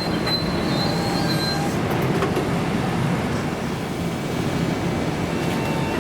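Long Island Rail Road train passing close by, its wheels running on the rails in a steady loud rumble, with a thin high squeal for about the first second and a half.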